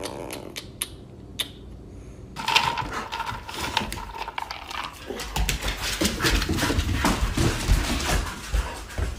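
A few sharp clicks, then from about two and a half seconds in, dry kibble rattling and scraping as a scoop digs into a plastic storage bin. From about five seconds in, low thumps and clicks of dogs' paws on a wooden floor.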